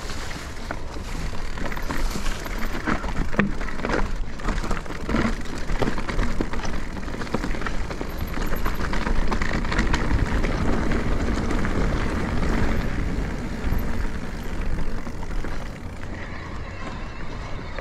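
Mountain bike riding over a rough trail: tyre noise and a constant clatter of short knocks and rattles from the bike, with wind rumbling on the microphone. It eases off near the end.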